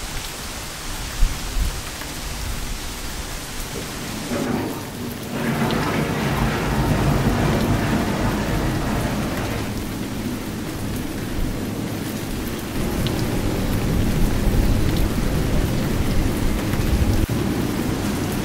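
Steady rain falling on the Anderton Boat Lift's wet iron structure, with one sharp knock about a second in. A low rumble joins the rain about five seconds in and continues to the end.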